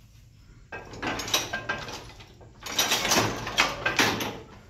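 Wooden loom sley pushed along by hand, its reed scraping across the tight warp threads in two strokes, the second louder.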